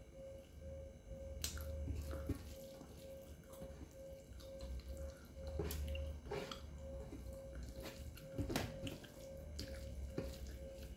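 Eating sounds: fingers mixing and scooping rice and dal on a brass plate, with chewing and a few sharp smacks and clicks spread through.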